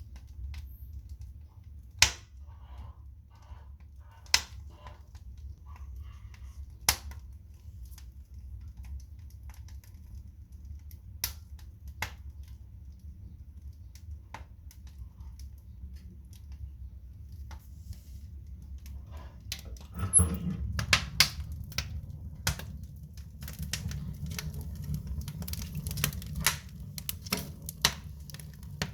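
Wood fire burning in a stove, crackling with occasional sharp pops over a low steady rumble. About two-thirds of the way through the crackling turns dense and the rumble louder, as the fire flares up.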